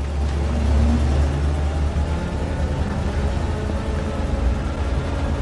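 School bus engine running and the bus driving along, a heavy steady low rumble heard from inside the cabin.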